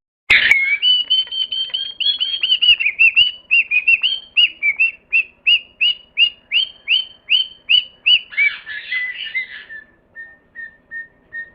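A bird singing: after a sharp click, a long run of repeated down-slurred whistled notes, about two to three a second, turning rougher and then to a few soft short notes near the end.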